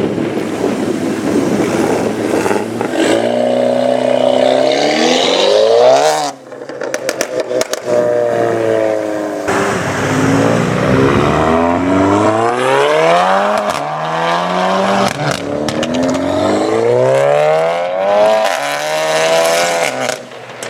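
Stage 2 tuned Seat Leon ST Cupra's turbocharged 2.0-litre four-cylinder, heard through a custom exhaust, accelerating hard with the revs climbing through the gears. About six seconds in the throttle closes and the exhaust crackles and pops for a couple of seconds. The car then pulls hard again, revs rising and falling through more gears.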